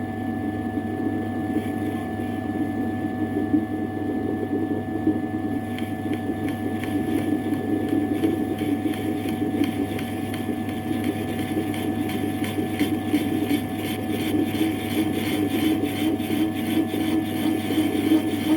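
Metal lathe running with a steady hum. About six seconds in, a dense fast crackle joins it, as of the newly made grooving tool cutting into the work.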